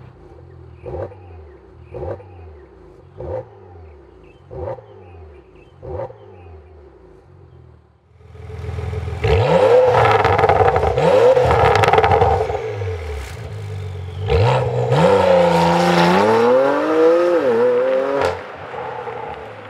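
Porsche Macan Turbo's 3.6-litre twin-turbo V6 through a valved cat-back exhaust with the valves open. It idles with five quick rev blips about a second apart, then runs loud under hard acceleration, its pitch climbing and dropping again and again, before easing off near the end.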